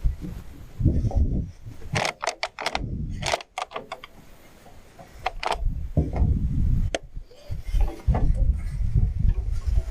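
Handling noise: quick clusters of sharp clicks and light rattles, about two seconds in and again near the middle, over a low rumble on the microphone.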